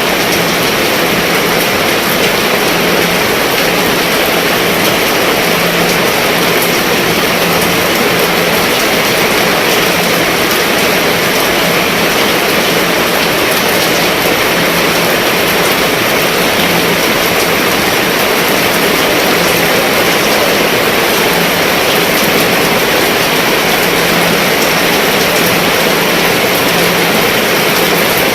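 Heavy rain falling steadily on a roof, an even, dense hiss with no let-up.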